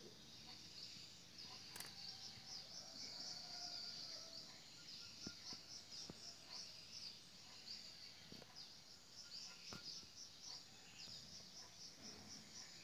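Faint insect chorus: chirping in quick, evenly repeated high pulses, with a few soft clicks scattered through.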